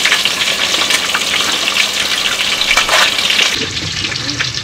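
Breaded pork cutlets deep-frying in hot oil: a steady sizzle full of small crackling pops, easing off slightly near the end.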